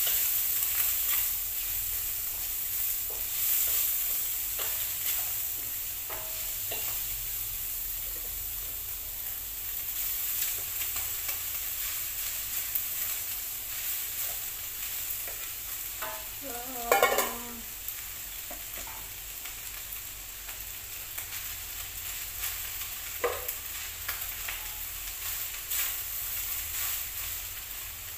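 Food sizzling in a wok on a gas stove while a spatula stirs and scrapes the pan, with small knocks. About halfway through comes a brief louder squeaky scrape as cooked rice is scraped out of a rice-cooker pot into the wok.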